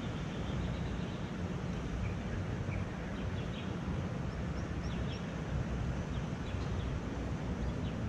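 Wind rumbling on the microphone, with a few faint bird chirps about halfway through.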